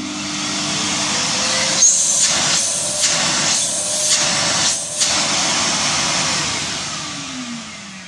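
Altus AL605S bagless canister vacuum cleaner running, a steady rushing motor sound that brightens briefly about once a second in the middle, then drops in level with a falling tone as it winds down near the end. The motor sounds normal, with no howl or whining.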